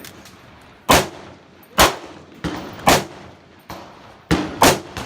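Gunshots at a shooting range: about five sharp reports, spaced roughly a second apart, with two close together near the end.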